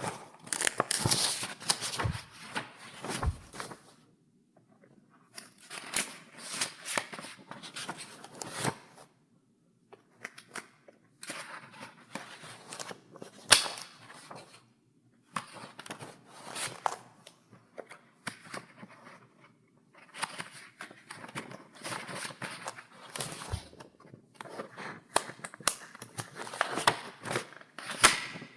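Pages of a paper file being turned one after another: crisp paper rustling with sharp snapping clicks, in bursts of a few seconds broken by short pauses.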